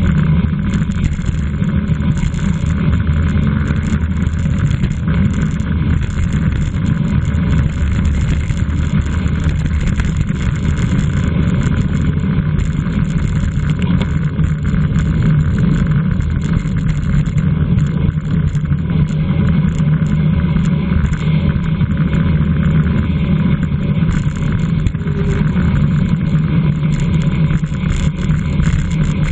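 Steady wind rush and road noise from a racing bicycle ridden at speed in a criterium.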